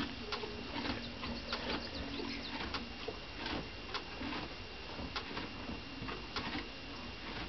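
Horse munching hay pulled from a hay net: irregular crunching and rustling clicks. A few short, low, cooing calls come in near the start and about two seconds in.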